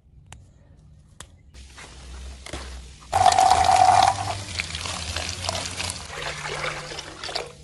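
Water pouring into a metal basin, starting suddenly about three seconds in, followed by hands swishing and splashing purslane leaves around in the water.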